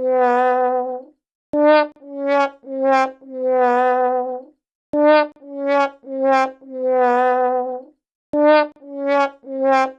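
Sad trombone comedy sound effect, the classic 'wah wah wah wahhh', playing on a loop: three short notes stepping down in pitch, then a long, lower held note that wavers. It repeats about every three and a half seconds, with a faint click at the start of each repeat.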